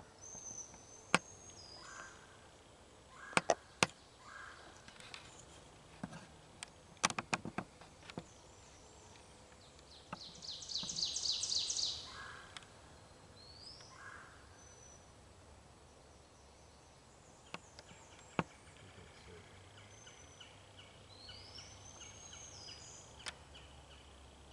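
Spring woodland ambience: songbirds giving short rising whistles and, midway, a loud fast trill, with a few sharp twig-like clicks and snaps in the first few seconds and one more later.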